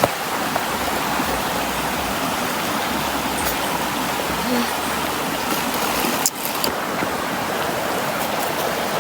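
River water rushing steadily, running hard, which is put down to rain during the week. There is a brief break in the sound about six seconds in.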